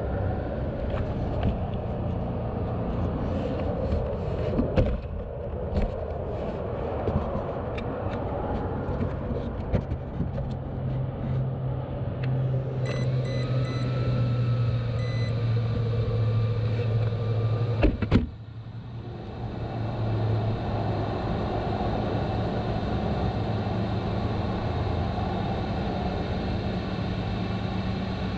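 Steady low motor-vehicle rumble. Four short high beeps come about halfway through, and a single sharp knock follows a few seconds later.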